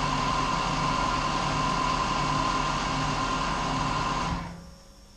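Electric air compressor running with a steady hum and whine, then shutting off about four seconds in, leaving only a faint low hum.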